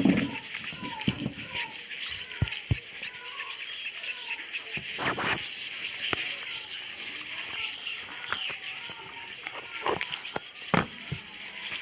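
Swiftlets' roosting call: many birds twittering together in a steady, high, dense chirping, with scattered sharp clicks.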